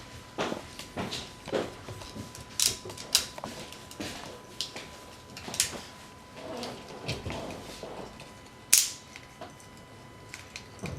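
Clicks and knocks of die-cast and plastic toy-robot parts being handled and moved into place, as the lion's legs of a GoLion figure are transformed. The clicks come irregularly, with one sharper snap near the end.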